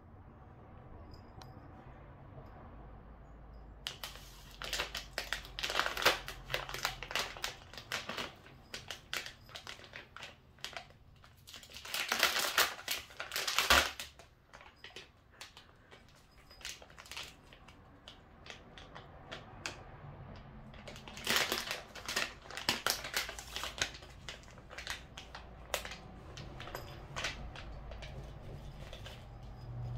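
Plastic pouch of Temptations cat treats crinkling as a cat paws at it, in spells of crackling with short pauses, starting a few seconds in and loudest near the middle.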